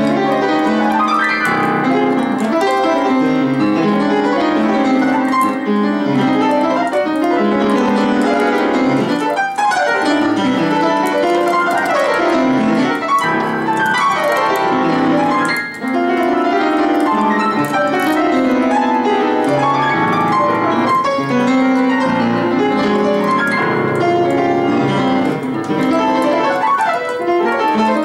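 Yamaha piano played solo in a dense, fast-moving improvisation with many notes sounding together, on an instrument that is out of tune. The playing breaks off for a moment about halfway through, then carries on.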